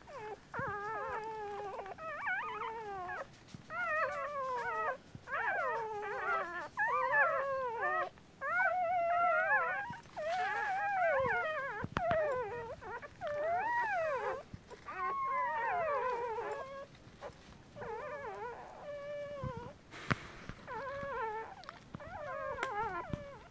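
Newborn puppies crying: a near-continuous run of high, wavering squeals that rise and fall in pitch, each under a second or so, sometimes two at once, with a couple of short lulls.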